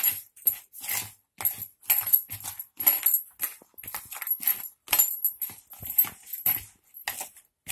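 Boiled mashed potato being squeezed and mixed by hand with spices in a plastic bowl: repeated squishing strokes, about two or three a second.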